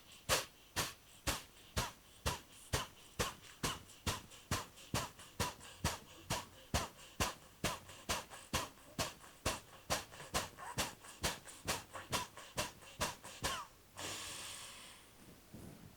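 Fast Kapalbhati breathing: short, forceful exhalations through the nose, about two sharp puffs a second, each driven by a snap of the abdomen. About fourteen seconds in the puffs stop and a single longer breath follows.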